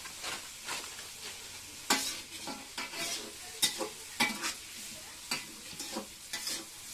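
A metal spoon stirring and scraping chopped vegetables frying in oil in a metal pot, with irregular scrapes and clinks over a faint sizzle.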